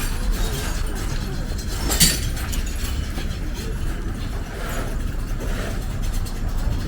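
Outdoor street ambience: a steady low rumble of passing traffic, with one sharp knock or clink about two seconds in.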